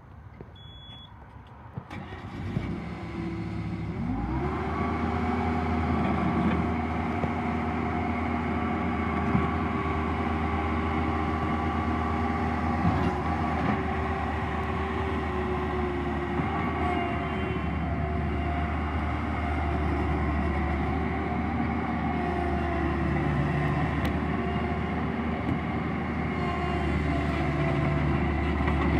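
Bobcat T190 tracked skid steer's diesel engine being started: a short beep about a second in, then cranking from about two seconds, before the engine catches about four seconds in. It revs up briefly and settles into steady running.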